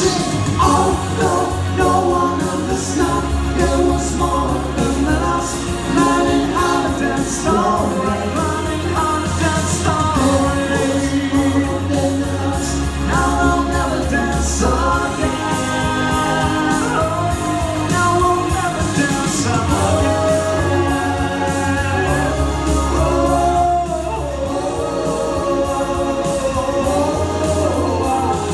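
Three male voices singing a pop ballad in harmony over amplified backing music with held bass notes and a steady cymbal beat, played through a theatre's PA.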